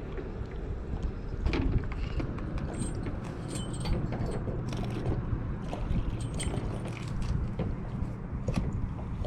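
Steady low rumble of wind and sea on the microphone, with scattered light clicks and ticks throughout.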